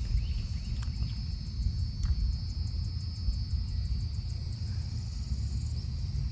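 Low wind rumble on the microphone, with a steady high-pitched insect drone behind it.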